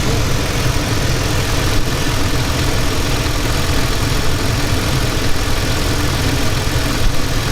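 Mercedes-Benz M112 V6 petrol engine running steadily at idle.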